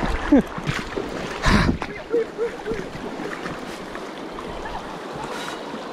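Fast river current rushing steadily around the angler, with one brief louder surge of noise about one and a half seconds in.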